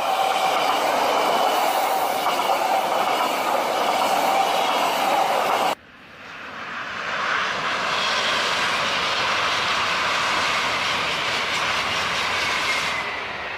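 TGV high-speed trains passing at speed: a steady rush of wheels and air. It cuts off suddenly about six seconds in, then a second pass builds up and runs steadily, with a faint falling whine near the end.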